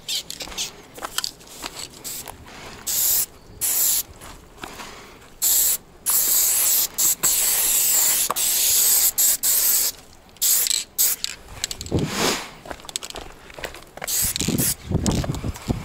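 Aerosol spray paint can spraying onto a rough wall: short hissing bursts, then one long spray of about four seconds, then more short bursts. Lower handling and scuffing noises come near the end.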